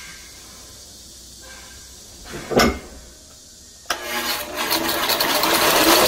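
A brief loud whoosh about two and a half seconds in. Then, near the four-second mark, a belt grinder switches on and its abrasive belt runs, growing steadily louder as the wooden knife handle is brought to the belt.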